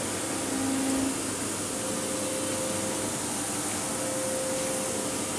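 Steady workshop background noise: an even hiss with a faint steady hum, no distinct events.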